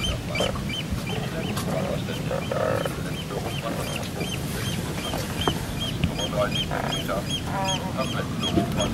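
Geese honking, in clusters about two and a half seconds in and again from about six to eight seconds, over a steady high chirping that repeats about four times a second.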